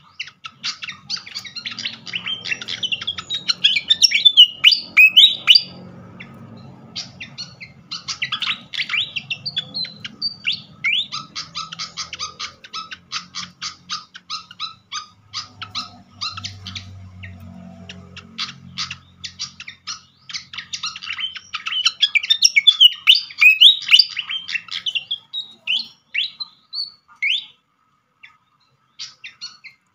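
Malaysian pied fantail singing: quick runs of sharp squeaky chirps and rapid ticking notes, with louder spells of twittering a few seconds in and again past twenty seconds, and a brief pause near the end.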